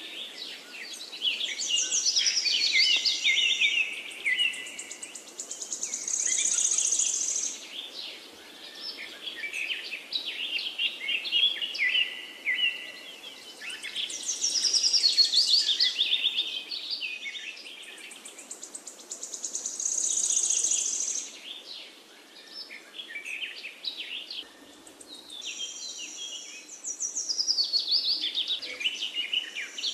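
Birds chirping and singing: a dense stream of high tweets and trills, swelling and fading every few seconds, with one high, drawn-out song phrase coming back several times.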